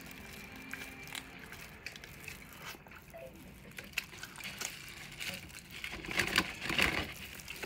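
Close-up eating: biting and chewing with wet mouth clicks and crunches, mixed with the crinkle of plastic food gloves. It gets louder about six seconds in.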